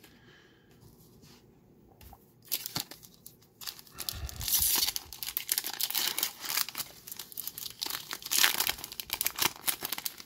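Foil wrapper of a Magic: The Gathering set booster pack being torn open and crinkled. Crackling starts about two seconds in and comes in louder bunches in the middle and near the end.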